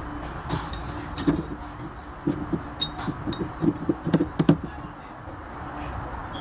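Chopsticks clicking and tapping against a jalapeño jar and the pizza as slices are picked out and laid on; a run of light clicks and knocks, thickest around four seconds in.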